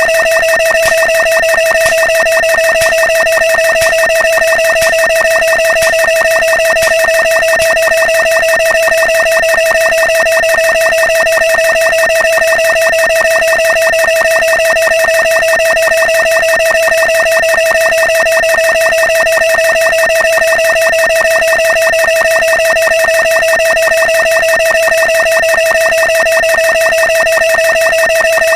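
Loud, steady electronic buzzing tone at one fixed pitch, pulsing very fast and evenly without change: a looping synthetic sound effect.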